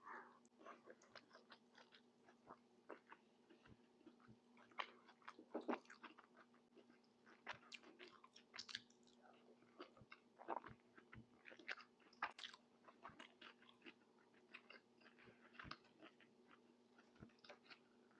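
Close-miked chewing and biting of Moroccan tagine, a run of many short, irregular clicks and small crunches over a faint steady hum.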